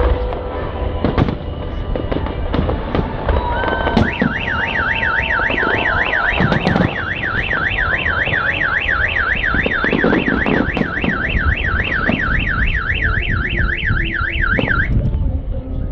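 Fireworks banging and crackling. About four seconds in, a parked car's alarm siren starts: a fast up-and-down warble, about three to four sweeps a second. It stops abruptly about a second before the end while the fireworks go on.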